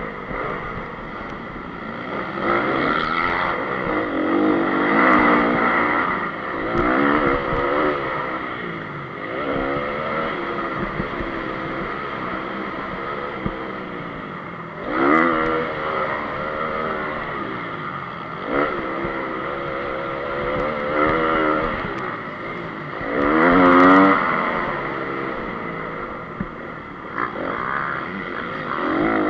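2014 Honda CRF250 motocross bike's single-cylinder four-stroke engine racing, revving up and down repeatedly through corners and straights, heard from the rider's onboard camera. The hardest surges come about fifteen and twenty-four seconds in.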